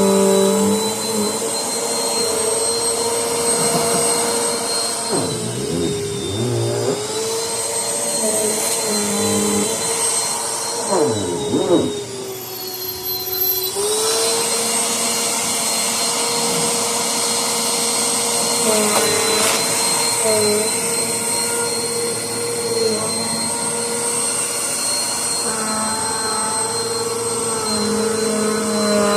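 Vacuum cleaner motor running steadily with a high whine; its pitch sags briefly a few times as it is loaded, most deeply about twelve seconds in.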